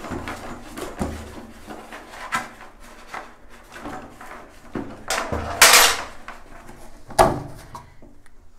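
Handling noises of tools and parts: scattered knocks and clicks, a longer scraping rustle a little past halfway, and a sharp knock about a second after it.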